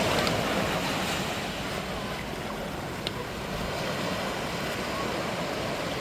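Sea waves washing in and breaking, a steady rush of surf, with wind buffeting the microphone.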